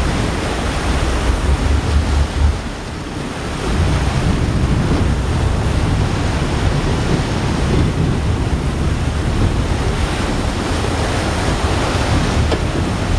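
Steady wind buffeting the microphone over the rush of open sea and wake from a moving boat, with a low rumble; it drops briefly about three seconds in.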